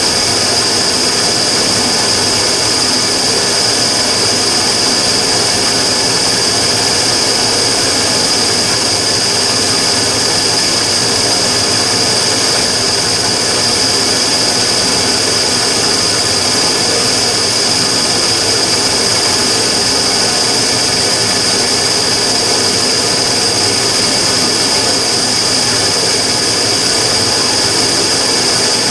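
Immersion tube burner firing continuously: a steady roar with a strong, unchanging high-pitched whistle on top. This is the noise its owner recorded as abnormal (異音).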